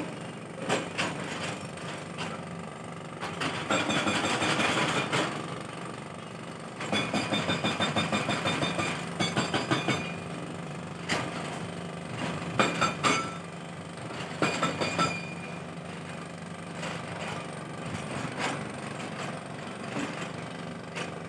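Tata 210 excavator's diesel engine running steadily, with two stretches of rapid repeated knocking, about five blows a second, and a few sharp clanks later on as the machine works.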